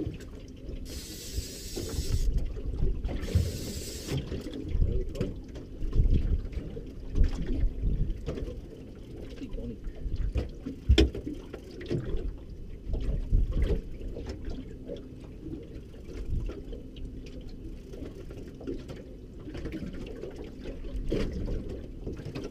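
Water slapping and lapping against the hull of a small boat drifting on a choppy sea, with a steady low rumble of wind on the microphone. Two short bursts of hiss come in the first four seconds, and scattered knocks sound on the boat, the sharpest about eleven seconds in.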